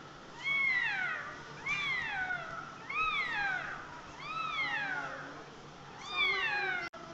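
A cat meowing five times in a row, each meow rising and then falling in pitch.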